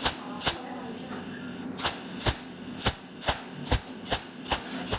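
Cold welding machine firing short arc pulses into brass, one sharp snap per weld spot, about two a second, with a pause of over a second after the first two. A steady low hum runs underneath.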